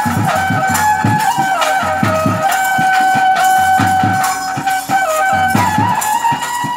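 Traditional bhuta kola ritual music: a wind instrument plays a stepping melody and holds one long note through the middle, over a steady drum beat with jingling percussion.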